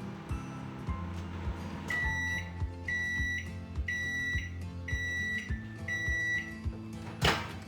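Microwave oven beeping five times, about once a second, signalling that its heating cycle has finished, with a short loud clatter near the end. Background music with a steady beat plays throughout.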